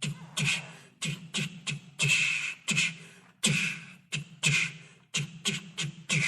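Vocal beatboxing: a mouth-made drum pattern of low kick-like thumps and hissing snare and hi-hat strokes in a steady rhythm, about three strokes a second.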